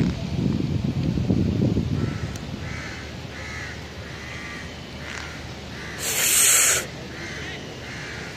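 Crows cawing over and over, about two caws a second, after a low rumble in the first two seconds. A brief loud hiss cuts in a little before the end.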